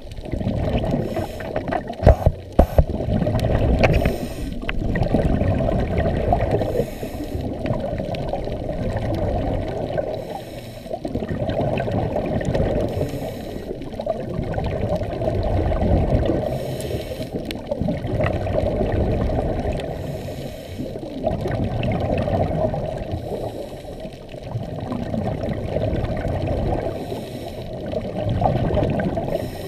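Scuba diving underwater, heard through a camera housing: muffled water noise that swells and fades, with bursts of exhaled regulator bubbles every three to four seconds. A few sharp clicks come about two seconds in.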